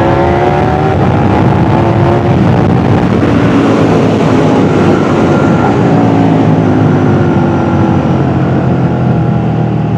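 KTM 1290 Super Duke R's V-twin engine under way, its revs climbing for the first couple of seconds, then a rougher, noisier stretch, then the revs slowly falling away in the second half.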